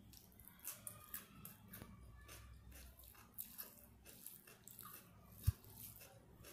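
Close-miked eating sounds of rice and curry eaten by hand: a string of short wet clicks and crackles. A single low thump about five and a half seconds in is the loudest sound.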